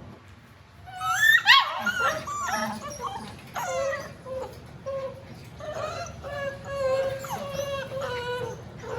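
Several young Bernedoodle puppies whimpering and squealing, their high cries overlapping from about a second in, with one long held whine near the end.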